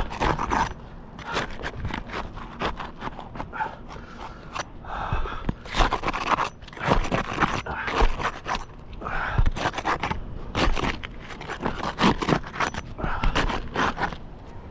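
A metal shingle-removal tool scraping and prying under roof shingles to break them loose from their nails, in many short, irregular strokes.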